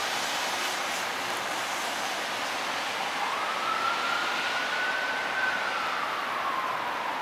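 An emergency-vehicle siren sounding a slow wail: starting about three seconds in, its single tone rises, holds, falls, then begins rising again near the end, over a steady background hiss of outdoor noise.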